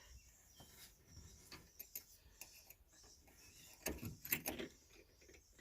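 Faint clicks and light rattles of parts being handled while a coilover's damping adjuster is fitted into the top of the shock. There is a louder flurry of clicks about four seconds in.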